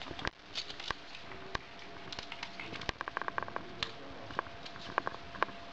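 Sharp, irregular clicks and taps from a pet fox scrabbling on a tiled floor as she tugs at a rawhide chew, her claws clicking on the tiles, with a quick run of clicks about three seconds in.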